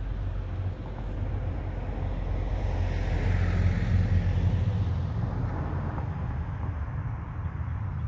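Outdoor traffic ambience: a steady low rumble, with a passing vehicle that swells and fades between about three and five seconds in.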